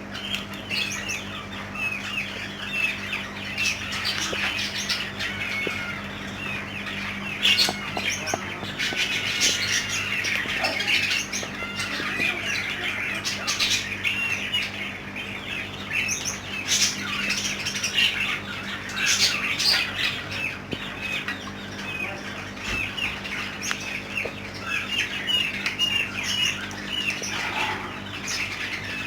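Many caged birds chirping and squawking continuously, their short calls overlapping, over a steady low hum.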